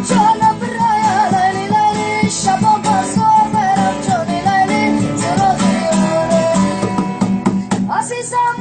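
A song with guitar: a voice sings a wavering, ornamented melody over plucked guitar, without a break.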